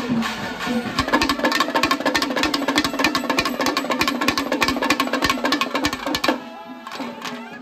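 Kerala temple percussion ensemble of drums and brass hand cymbals playing a fast, dense rhythm over a steady low drone. The rhythm stops abruptly about six seconds in, leaving quieter held tones.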